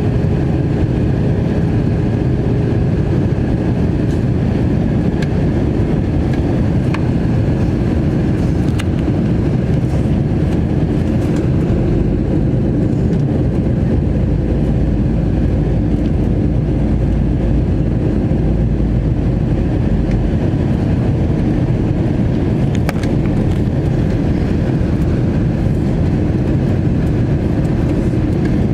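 Airbus A321 cabin noise in flight: the steady low rumble of the engines and rushing air, heard from inside the cabin, with a faint even hum.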